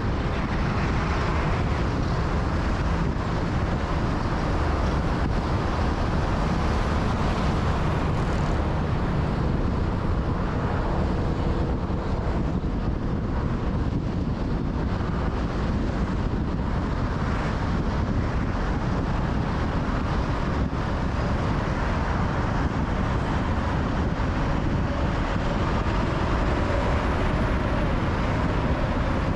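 A car driving at a steady speed on a motorway: an even, unbroken rumble of tyre, engine and road noise.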